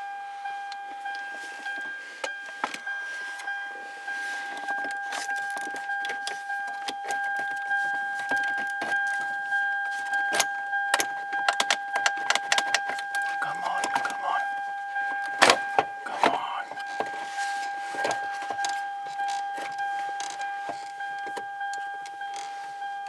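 Plastic dash trim around a Lexus ES330's factory radio clicking and rattling as it is pried and pulled loose by hand, with a few sharp snaps of the clips about midway. A steady high-pitched whine runs underneath.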